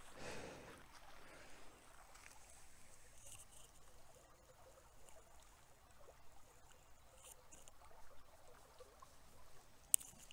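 Faint, soft crunching of footsteps on a wet sandy, gravelly creek bed, with one sharp click near the end.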